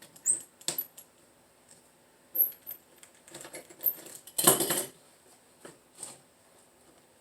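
Scattered light clicks and taps from hand-work on a window screen frame as the rubber spline is pressed into its channel and the mesh pulled tight. The loudest sound lasts about half a second, about four and a half seconds in.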